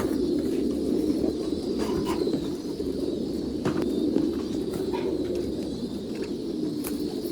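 Many domestic pigeons cooing at once, a steady low chorus, with a few sharp clicks among it.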